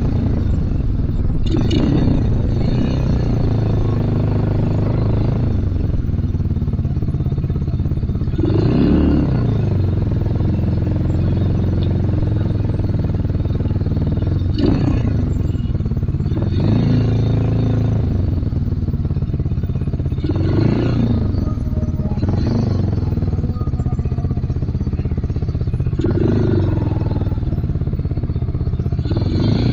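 Motorstar Z250R cafe racer's 250 cc engine running under way, its revs rising and falling several times as the throttle opens and closes.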